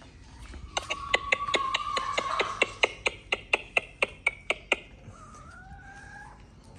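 Free-range chickens at feeding time: a quick run of sharp taps, about four a second, lasting some four seconds. A long, steady high-pitched call runs under the first half of the taps, and a short gliding call comes near the end.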